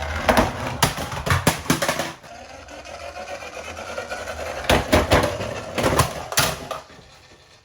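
Small toy cars clattering and knocking against hard plastic: two spells of quick clacks with a lighter rolling rattle between them, fading away near the end.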